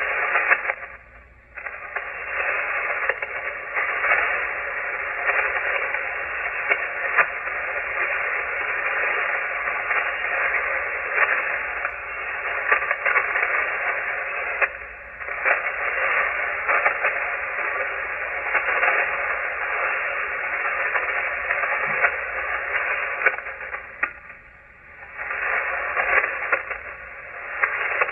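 Shortwave receiver on an open 40-meter amateur phone frequency with no station transmitting: a steady hiss of band noise, narrowed like a telephone line, with scattered static crackles. The hiss dips briefly a second in, about halfway and again near the end.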